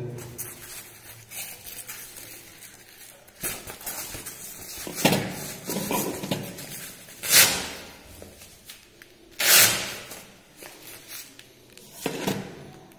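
Blood pressure monitor cuff being wrapped around the upper arm: rustling and handling of the cloth cuff, with two loud hook-and-loop (Velcro) rips a little after halfway through, about two seconds apart, as the strap is fastened and pulled snug.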